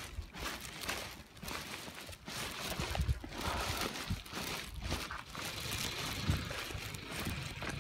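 Footsteps of a person walking along a street pavement: a series of short, unevenly spaced steps over a low, uneven rumble.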